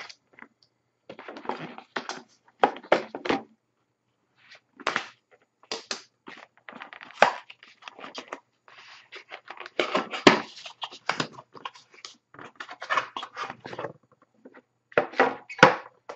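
Hands unsealing and opening an Upper Deck The Cup hockey card tin: irregular rustling, tearing and scraping of the plastic seal and the box, with a couple of sharp clicks as the tin is worked open.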